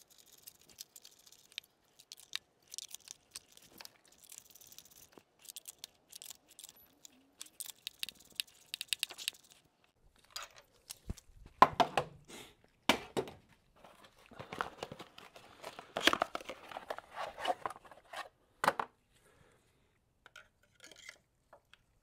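Small clicks and light rattles of parts and tools being handled over the engine. From about halfway come louder knocks and a rustle of crinkling, tearing plastic, as of new ignition coil packs being unwrapped and handled.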